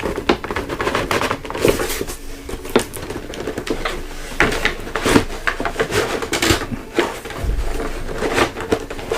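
Cardboard toy box and its packaging being handled and pried at: irregular rustles, scrapes and light knocks as an action figure stuck tight in the cardboard is worked loose.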